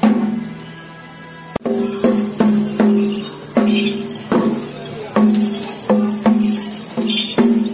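Percussion: a pitched drum struck in an uneven rhythm of about two strokes a second, each stroke ringing briefly, over a hiss of cymbals. The strokes begin after a sharp click about a second and a half in.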